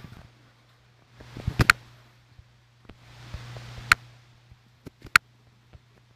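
Fingers tapping on a phone touchscreen: a few sharp taps, two close together a second and a half in, one near four seconds and one after five, with two soft hisses between them and a faint steady low hum underneath.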